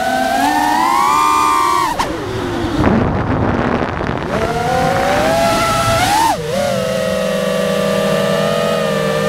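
FPV quadcopter's brushless motors and propellers whining, the pitch rising and falling with the throttle. About two seconds in the whine drops away and a rushing noise takes over during a dive; the whine then climbs back, blips sharply past the middle and holds steady near the end.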